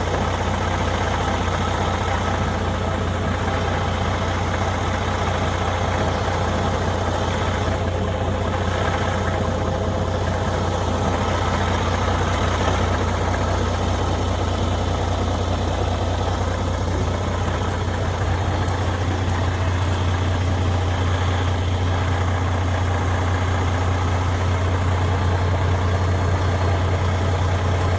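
Semi truck's diesel engine idling steadily with a strong low hum, left running to defrost the windshield. It cuts off abruptly at the end.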